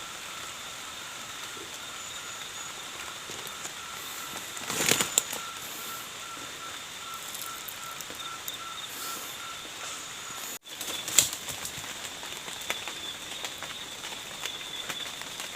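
Forest background with steady, high, pulsing trills. A brief rustle comes about five seconds in, and a sharp click follows just after a short break near eleven seconds.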